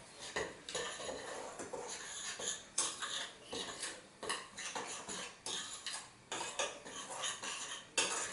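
A utensil stirring dry cake mix (flour, cocoa, sugar) in a glass mixing bowl, scraping and clinking against the glass in irregular strokes, roughly one or two a second.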